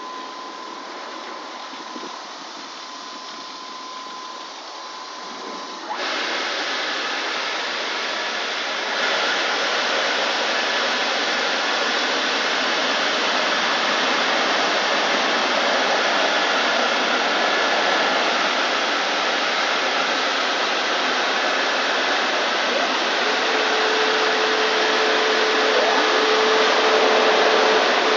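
Gantry car wash dryer blowers running: a steady rushing of air that steps up sharply about six seconds in and again a few seconds later, then holds steady with a faint whine as the dryer bar passes over the van.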